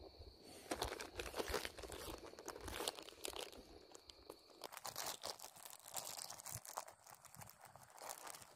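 Irregular crinkling and rustling with small clicks from crinkly plastic and fishing tackle being handled close to the microphone, typical of re-rigging a lure after the bait was lost.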